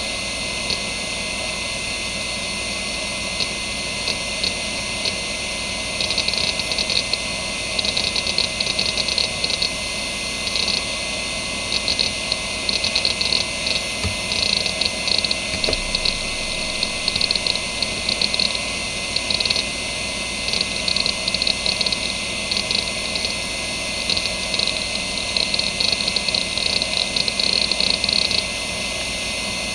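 Seagate ST9144A 2.5-inch three-platter hard drive (1992) spinning with a steady whine and hiss, its heads seeking in irregular bursts of rapid clicking as Windows 95 boots from it. The clicking stops near the end, leaving only the spin. The drive is healthy.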